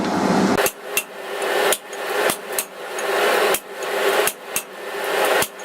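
Hand hammer striking hot mild steel on an anvil while drawing out a taper: about nine sharp blows at an uneven pace, with a steady hum between the blows.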